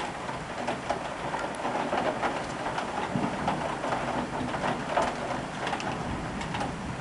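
Heavy thunderstorm rain pattering steadily, with many sharp, irregular drop taps close by.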